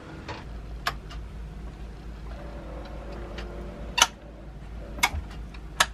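Four sharp clicks spread over a few seconds, the loudest about four seconds in, over a low steady hum.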